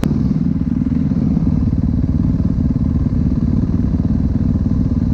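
Dirt bike engine running steadily without revving, close to the microphone, with a single sharp click at the very start.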